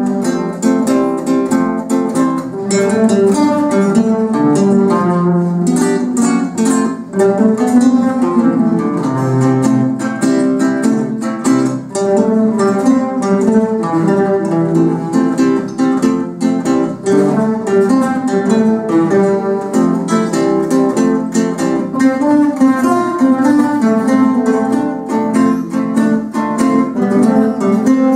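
A classical guitar ensemble of many guitars playing a piece together, plucked notes running on without a break.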